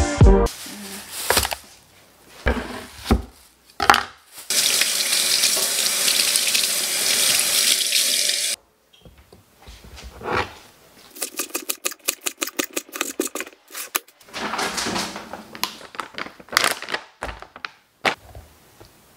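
A kitchen tap runs into the sink for about four seconds and shuts off sharply. Then a knife chops green onions on a wooden cutting board in a run of quick strokes.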